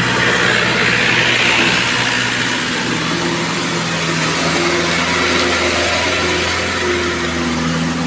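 Diesel engines of a palm-fruit-laden Mitsubishi Fuso Canter truck and a farm tractor running together on a climb. The engine tone is steady and shifts in pitch about three seconds in.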